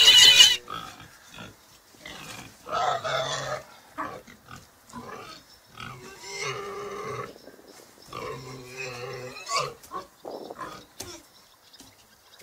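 Pig sound effect: a loud squeal right at the start, then three spells of grunting.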